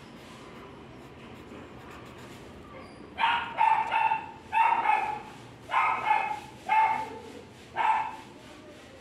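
A dog barking repeatedly: about seven sharp, high-pitched barks in quick succession, starting about three seconds in and stopping about a second before the end.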